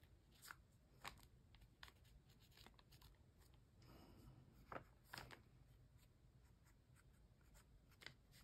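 Faint, scattered scratches and light taps of a fine-point Sharpie permanent marker scribbling short strokes on a journal page; the marker is not inking well on this surface.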